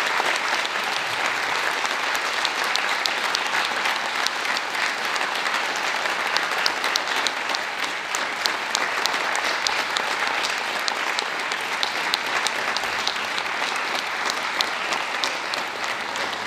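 Audience applauding: steady, dense clapping from many hands, easing slightly near the end.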